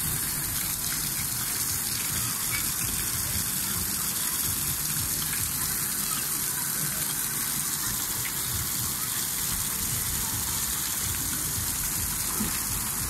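Water jets at a pool's water play structure spraying and splashing down onto a slide and into the pool: a steady gushing.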